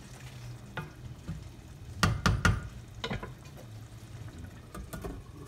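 A wooden spoon stirring minced chicken keema frying in oil and masala in a deep metal pan, with a soft sizzle. About two seconds in the spoon knocks sharply against the pan three times in quick succession, then once more a second later.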